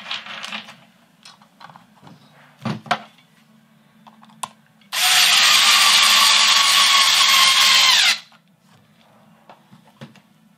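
Cordless drill-driver with a hex socket running for about three seconds, driving a hex-head screw through a rail chair into a plastic sleeper; its whine drops slightly in pitch just before it stops. Before it come a few light knocks of the track parts being handled.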